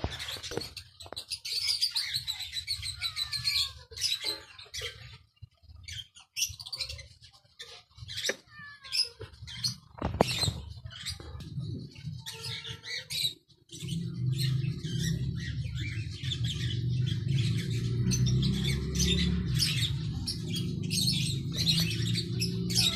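Birds chirping busily with many quick, high calls and a few falling notes. About halfway through, a steady low rumble starts underneath.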